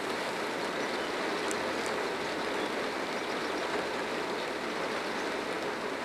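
Steady rushing noise, even and unbroken, with two faint short high chirps about a second and a half in.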